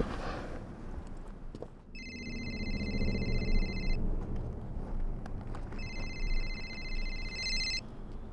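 Mobile phone ringing twice, each ring a rapid trilling electronic tone about two seconds long, announcing an incoming call, over a low steady rumble.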